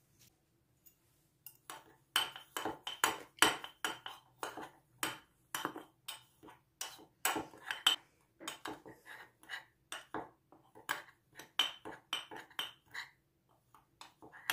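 Metal teaspoon clinking and scraping against a ceramic mug as chocolate mug-cake ingredients are stirred, in quick irregular strokes. The stirring starts about two seconds in.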